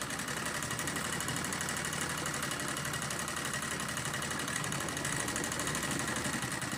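Black straight-stitch sewing machine running steadily, stitching through layered cotton fabric with a fast, even stitching rhythm as the curved edge of a hand bag panel is sewn.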